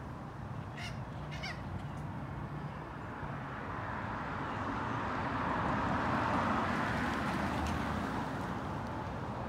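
Two short, harsh bird calls come about a second in, over steady outdoor background noise. Then a broad rushing noise builds up, loudest a little past the middle, and eases slightly near the end.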